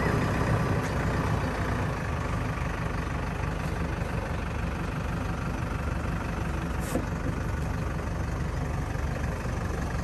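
JCB 3DX backhoe loader's diesel engine running steadily.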